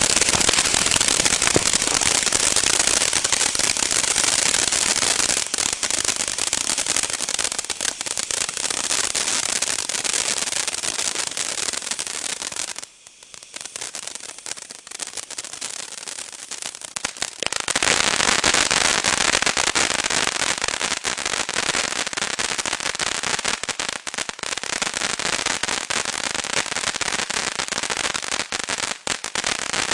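BOOMIN Bulldog 'Blue Fish' firework fountain spraying with a dense crackling hiss. It drops away a little under halfway through and comes back just as strong about four seconds later.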